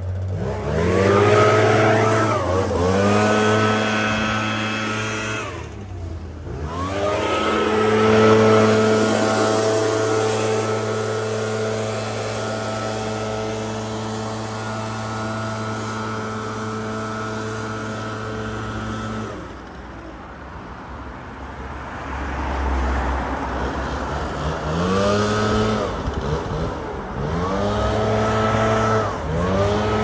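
Petrol backpack leaf blower engine revved up and down with the throttle. It rises in pitch several times in the first few seconds and holds at full throttle from about 8 to 19 seconds. It then drops back to idle for a few seconds and is revved in short pulls again near the end.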